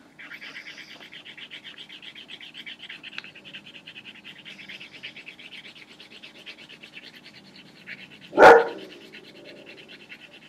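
Rapid, steady scratching strokes of a colouring tool scribbling red onto paper on a wooden table. A dog barks once, loudly, about eight and a half seconds in.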